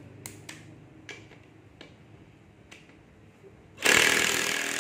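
A few light clicks as a cordless drill-driver is handled, then about four seconds in the drill starts up and runs loud and steady under load, its bit working into a rusty steel plate.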